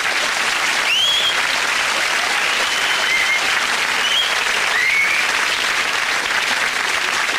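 Studio audience applauding steadily after a punchline, with a few short rising whistles about 1, 3, 4 and 5 seconds in.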